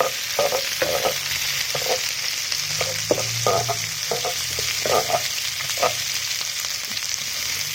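Chopped vegetables (onion, broccoli, mushroom and capsicum) sizzling in hot oil in a frying pan, a steady hiss. A utensil stirring them makes short, irregular scrapes and knocks.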